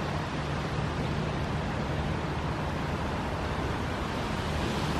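Steady outdoor harbour ambience: a low mechanical hum under a constant rush of wind noise.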